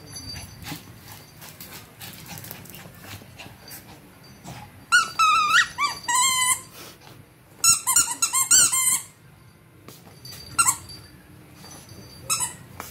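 A frightened Shih Tzu whining in high, wavering cries that slide up and down, in two bouts about five and eight seconds in, then two short whimpers near the end.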